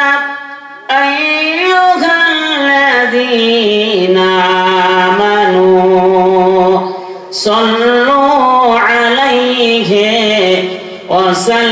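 A man chanting in long, drawn-out melodic phrases into a microphone, with wavering held notes and short pauses for breath about a second in, around seven seconds and near the end.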